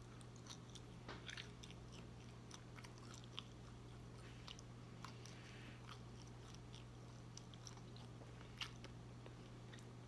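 Close-miked biting and chewing of a sausage link: soft, scattered wet mouth clicks and smacks, with a steady low hum underneath.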